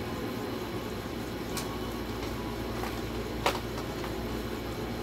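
Small sharp clicks of a lavalier microphone and its cable being unwrapped and handled, two of them, the louder about three and a half seconds in, over a steady background hum.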